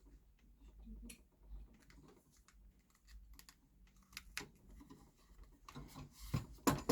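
Scattered light clicks and taps of hands handling the metal desk-clamp base of a monitor arm while fitting its foam pad, growing louder and busier near the end.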